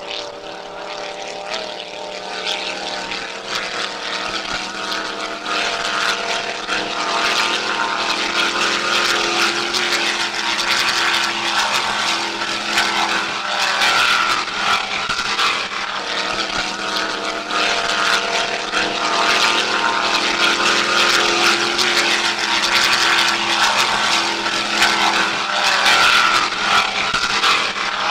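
Powerboat engines running steadily, growing louder over the first several seconds, with gusty wind buffeting the microphone.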